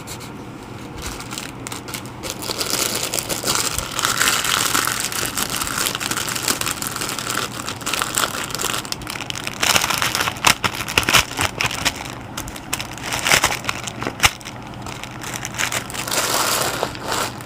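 Crinkly plastic or bag material being handled, rustling and crackling with many small sharp clicks. It gets busier and louder about two seconds in.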